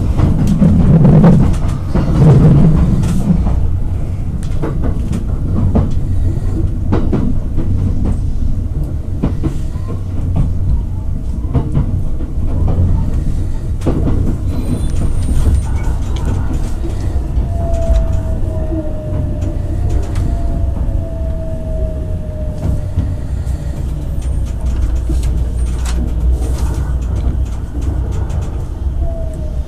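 Onboard running noise of a JR West 287 series electric limited express train: a steady low rumble with irregular clicks from the wheels on the track, slowing as it pulls into a station, with a faint falling whine as it brakes.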